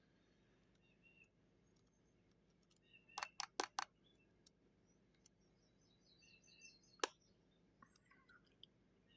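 Lock picking: faint sharp clicks of a pick and tension tool working the pins of a Goal Z lock, a quick run of four clicks a little over three seconds in and a single click near seven seconds, otherwise near silence.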